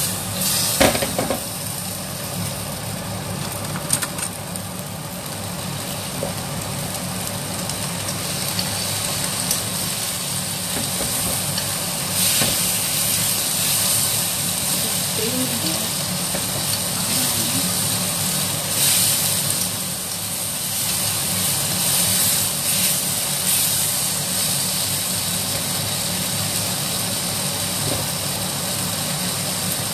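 Snap peas and Chinese sausage sizzling in a wok during stir-frying, the hiss swelling twice when the food is tossed, over the steady hum of the range hood fan. A few sharp clicks of the utensil against the wok near the start.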